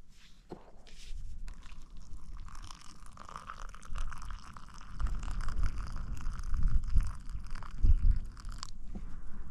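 Freshly boiled water poured from a Jetboil stove's cooking cup into a mug, a steady splashing trickle that stops suddenly near the end. A low rumble runs underneath from about halfway.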